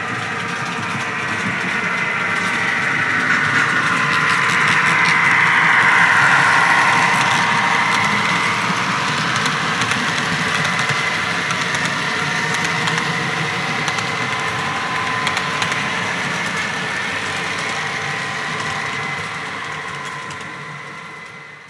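HO scale model freight train rolling past, with a steady whine and light clicking from its wheels on the track. It grows loudest about six seconds in, then fades away near the end.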